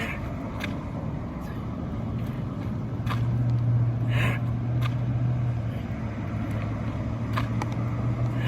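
A low, steady engine hum that gets louder about three seconds in, over outdoor background noise with a few faint clicks.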